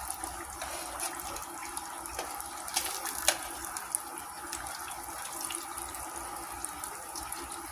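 Southern fried chicken frying in hot oil: a steady sizzle with occasional sharp pops.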